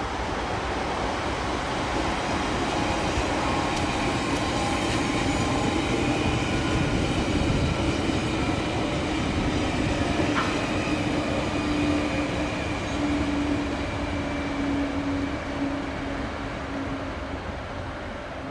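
NS VIRM double-deck electric train passing by, its running noise building to a peak midway and then fading as it draws away. A steady hum holds through the second half, with one short click about ten seconds in.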